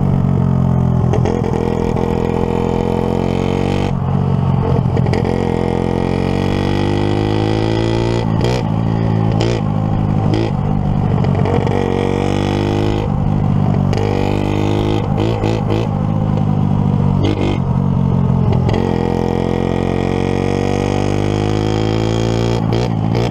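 Kawasaki KLT 110 three-wheeler's single-cylinder four-stroke engine running under way, its revs climbing and dropping repeatedly as the throttle is worked through the gears.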